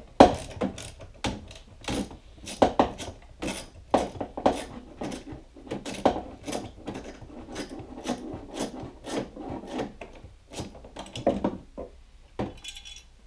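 Ratchet wrench clicking in repeated back-and-forth strokes, about two a second, as the 12 mm bolts holding the tailgate latch are loosened.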